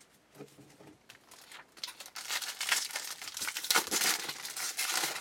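Silver foil wrapper of a 2012 Bowman Jumbo baseball card pack being torn open and crinkled by hand, starting about two seconds in.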